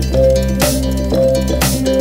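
Background music with a steady beat, a sharp hit about once a second over held notes.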